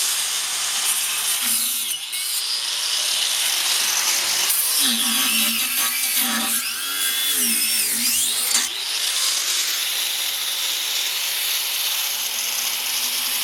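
Craftsman angle grinder with a cut-off wheel running continuously as it cuts a tire off an aluminum wheel. Its pitch wavers for a few seconds in the middle as it loads up in the cut.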